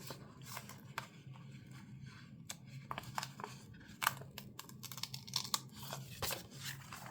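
Paper stickers being peeled off their backing sheet and handled: irregular soft crackles, rustles and light taps of paper.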